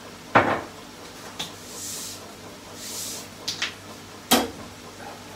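Kitchen handling clatter: a few sharp knocks and clicks, the loudest about half a second in and just past four seconds, with two brief soft hisses around the second and third seconds.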